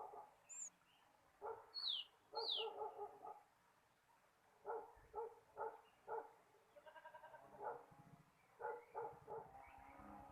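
Short, repeated bouts of whining animal calls, with two high falling chirps about two seconds in.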